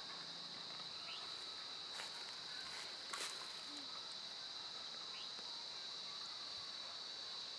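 Insects chirring steadily at a high pitch, with two light clicks, about two and three seconds in.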